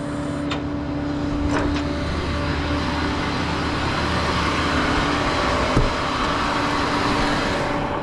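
Motor vehicle running with a steady low hum, and a rushing road-type noise that swells over a few seconds and fades away near the end.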